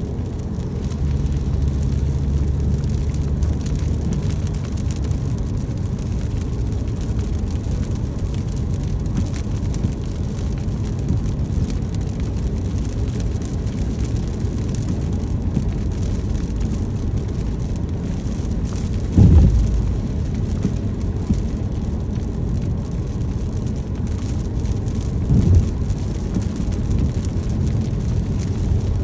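Car driving on a wet road in rain: a steady low road rumble with the hiss of rain and spray, and two brief louder low thumps, about two-thirds of the way through and again near the end.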